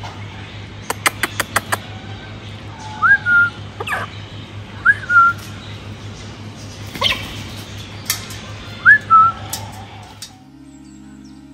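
Cockatoos whistling: three short whistles that each rise and then dip, with sharp loud calls and a quick run of clicks between them. Music starts near the end.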